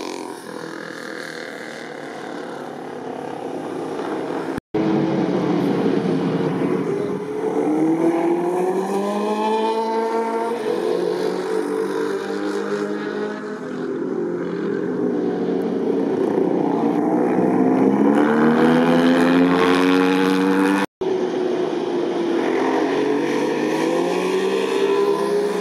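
Motorcycle engines passing one after another, their pitch rising and falling as the riders accelerate, shift and slow. The sound cuts out abruptly twice.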